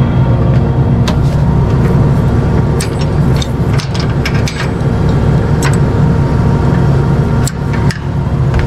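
Combine harvester's diesel engine running steadily, with a scatter of short sharp clicks and knocks as the header's transport locks are pulled out.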